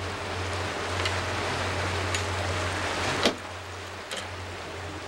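Steady low hum of the boat's engine under a rush of wind and sea wash, with a few sharp knocks, the loudest about three seconds in.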